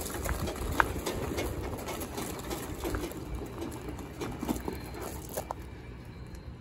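Gravel crunching under the knobby tires of a hand-pulled trailer tow dolly as it rolls, mixed with footsteps on the gravel: a steady rough rumble with many small irregular clicks of stones.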